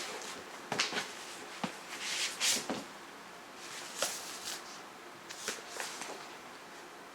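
A glossy magazine being handled and its pages turned: a few light knocks and taps, with one paper rustle about two seconds in.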